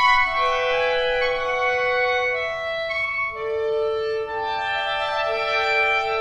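Clarinet ensemble playing long, overlapping held notes that change one voice at a time, forming slowly shifting chords with an organ-like blend; the lowest note steps down about three seconds in.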